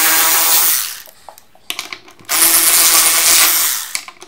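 Cordless power drill driving in a pinball machine's leg bolts, its motor whining at a steady pitch. It stops about a second in and runs again for about a second and a half.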